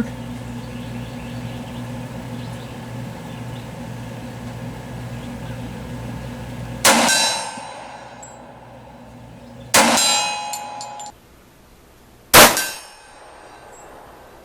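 Three pistol shots from a Glock 21 .45 ACP, about three seconds apart, starting about seven seconds in, the last the loudest, each followed by a ringing tail. Two of them are hits ringing a steel target at about 50 yards.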